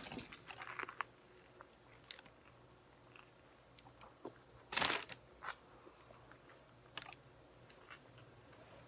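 Close-up eating of a sub sandwich: quiet chewing with small crunches and mouth clicks, and one louder, brief crunch about five seconds in.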